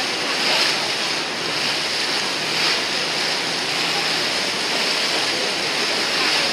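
Steady rush of wind and water heard from the deck of a moving boat.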